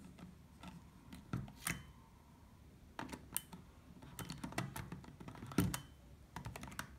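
Light, irregular plastic clicks and taps as a battery is pushed into a compact camera's battery compartment and its hinged door is handled, with a quick run of clicks near the end.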